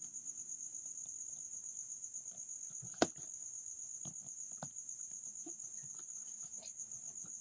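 Steady high-pitched chirring of crickets, with one sharp click about three seconds in and a few fainter ticks after it.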